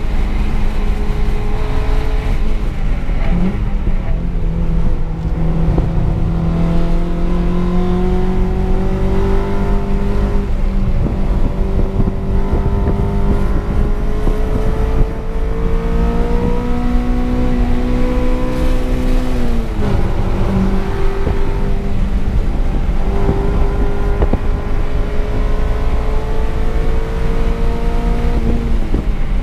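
Honda Civic's K20 four-cylinder engine under load, heard from inside the cabin, its pitch climbing slowly through long pulls. The revs drop sharply about three seconds in and again near twenty seconds in, then climb again.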